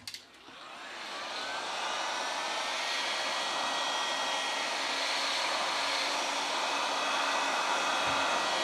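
Handheld electric heat gun starting up with a click, its fan spinning up over about two seconds with a rising whine, then blowing steadily.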